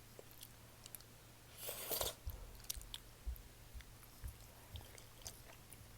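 Close-up chewing and biting of malatang, Sichuan spicy soup with noodles and vegetables: soft, wet mouth clicks and crunches, with one louder, longer noisy swell about two seconds in.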